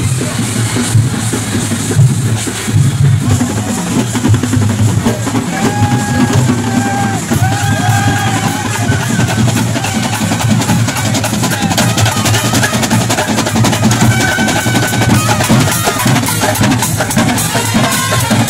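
Street brass band playing: trumpets carry a melody of held notes over a steady beat of bass drum and snare drums, with the melody coming in about six seconds in.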